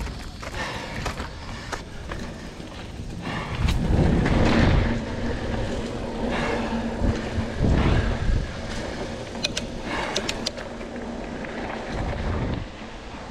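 Mountain bike ridden along a dirt forest trail: tyres rolling over dirt and leaves with scattered ticks and rattles from the bike, and three rumbling gusts of wind on the microphone as the bike picks up speed.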